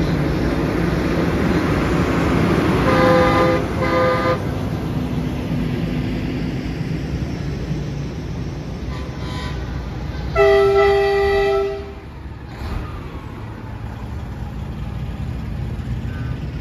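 Semi-truck air horns sounding over the steady rumble of passing truck engines: two short blasts about three seconds in, then one longer, louder blast of about a second and a half a little after ten seconds.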